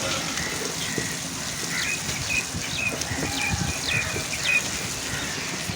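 Onion, tomato, ginger and garlic masala sizzling steadily in coconut oil in a pan. Through the middle comes a run of short, high chirps from a bird.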